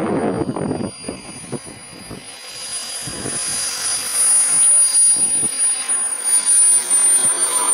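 Small Jet Munts Merlin 140 model jet turbine in an RC Su-54 whining at a steady high pitch as the model lands and rolls out, growing louder as it comes closer. A low rumble sits under it in the first second.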